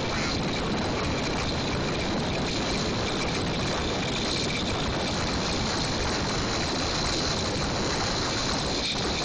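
Small gas engine of a motorized bicycle running steadily at cruising speed, mixed with a constant rush of wind on the microphone.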